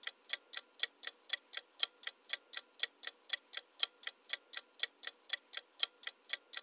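Clock-tick sound effect for a countdown timer: sharp, even ticks at about four a second.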